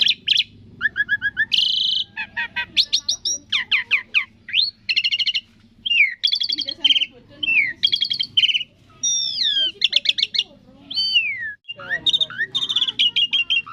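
Asian pied starling (jalak suren) singing its varied 'thousand-voice' song: phrase after phrase of clear whistles, rapid chattering trills and sweeping up-and-down slurs, with short breaks between them.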